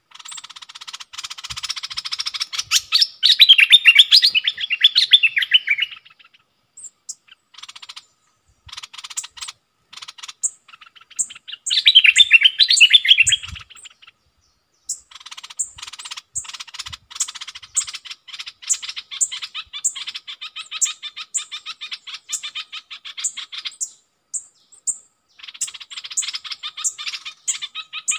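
Stripe-throated bulbuls singing and chattering in bouts broken by short pauses. Loud warbling phrases come about three to six seconds in and again around twelve to fourteen seconds. Through the second half a sharp high note repeats about once a second.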